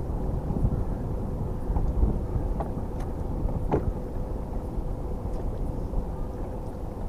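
Wind buffeting the microphone on an open boat deck, a steady low rumble, with a faint constant hum underneath and a few light clicks near the middle.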